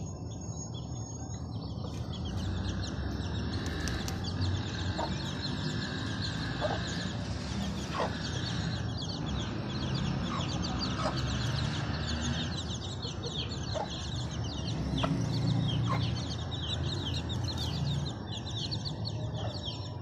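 Chickens clucking now and then in short single notes, over small birds chirping steadily in the background, with a low rumble throughout.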